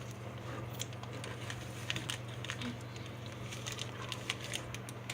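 Scattered small clicks and crinkles of candy and its plastic wrappers being handled, over a steady low hum.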